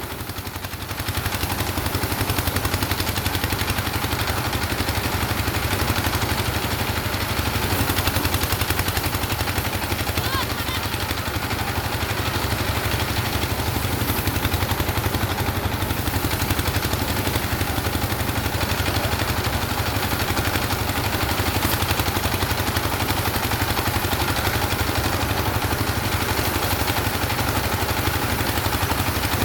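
An engine running steadily throughout, with a rapid, even pulsing beat and a strong low hum.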